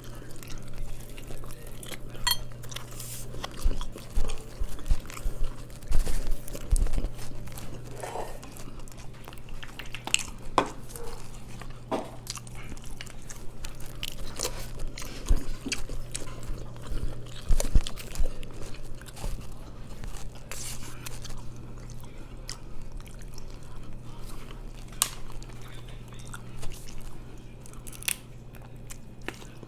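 Close-miked chewing and biting of mussels and chicken, with many short sharp clicks and taps scattered throughout, over a steady low hum.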